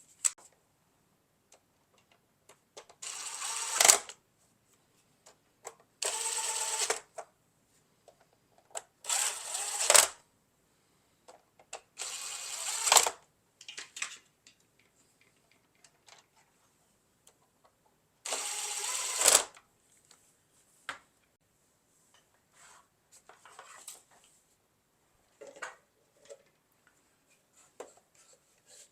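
Small power screwdriver driving screws into a Roomba i7 robot vacuum's housing: five short runs of about a second each, each ending in a sharp click as the screw seats, with light handling clicks between.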